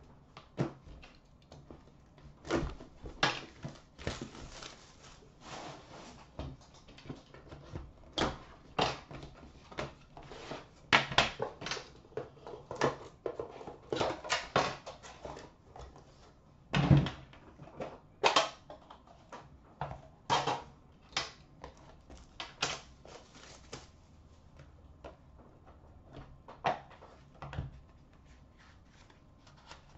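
Hands handling and opening a metal tin box of hockey cards: scattered clicks, knocks and scraping, with short stretches of rustling. The loudest is a single heavy knock about 17 seconds in.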